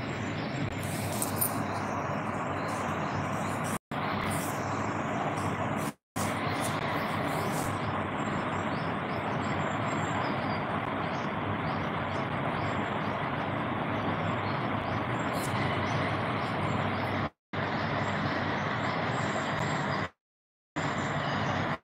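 Steady rushing background noise with no clear beat or tone, cut by brief dropouts to dead silence about four seconds in, near six seconds, near seventeen seconds and for about half a second near the end.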